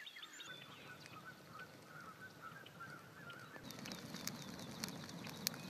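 A faint run of quick, repeated animal calls, then a bonfire of logs and dry brush crackling with sharp pops from about two-thirds of the way in.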